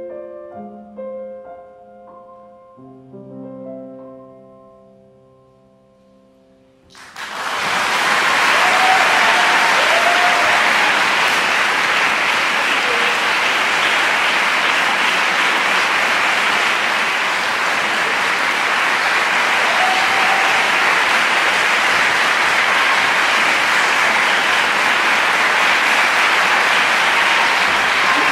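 Flute and piano play the last notes of a slow piece, which die away to a hush. About seven seconds in, an audience bursts into applause that goes on steadily.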